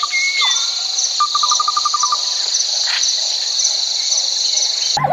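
A steady, high insect chorus, like crickets, with a bird giving two rapid trills of repeated notes and a few short whistled notes. It all cuts off abruptly near the end.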